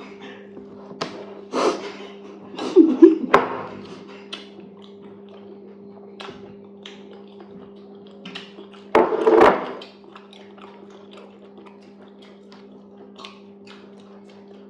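Eating sounds of fufu and okra soup: wet chewing, mouth clicks and small taps, with a louder noisy sound lasting about a second around nine seconds in. A steady low hum runs underneath.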